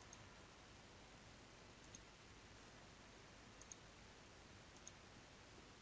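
Faint computer mouse clicks, about five, two of them in quick succession, over a low steady hiss.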